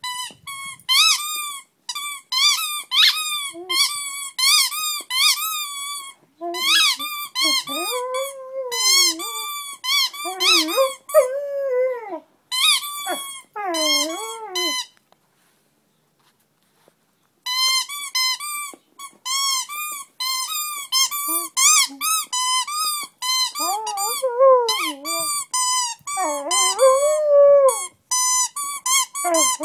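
Squeaky toy squeaked over and over, most likely by a dog chewing on it. It gives runs of short, same-pitched squeaks several times a second, mixed with longer squeals that sag lower in pitch. The squeaking stops twice, the second time for a couple of seconds.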